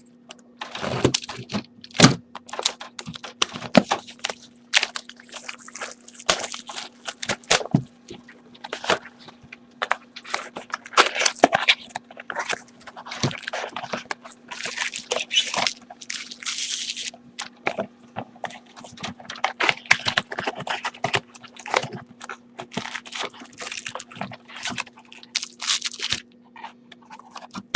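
Plastic wrap and foil trading-card pack wrappers crinkling and rustling in irregular bursts with sharp crackles, as a hobby box of football cards is unwrapped and its packs are pulled out. A steady low hum runs underneath.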